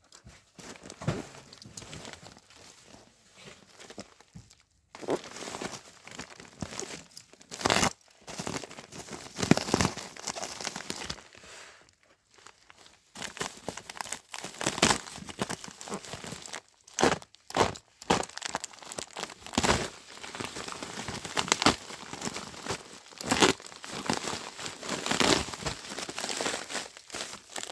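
Parcel packaging being handled and opened by hand: irregular crinkling and rustling with bouts of tearing.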